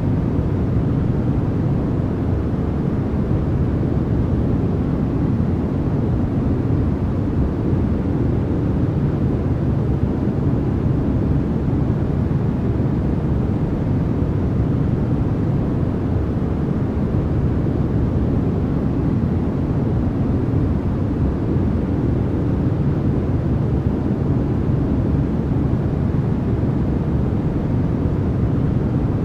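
Steady sleep-noise track: an even, deep hiss that does not change. It is strongest in the bass and thins out toward the treble, so it sounds more like a low rumble than a bright white-noise hiss.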